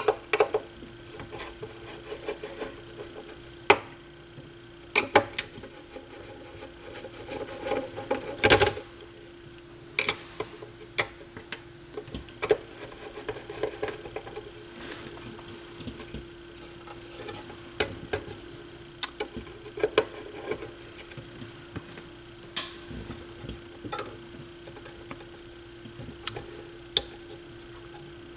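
A screwdriver and fingers working a small screw on the tonearm mechanism of a Technics SL-1301 turntable: scattered light clicks and taps of tool on metal and plastic parts, the loudest about eight and a half seconds in, over a faint steady hum.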